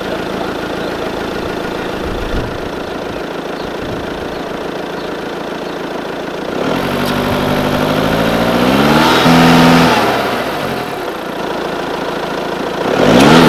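Audi A5's engine idling steadily, then revved up, held for a couple of seconds and let back down, with a second shorter rev near the end. The car is straining against a chain tied to a bollard to pull its bent front frame straight.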